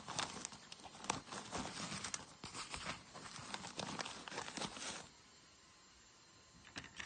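Rustling and irregular soft clicks of items being handled and stowed in a carry case's fabric pocket, a tape measure pushed in among them; the handling stops about five seconds in.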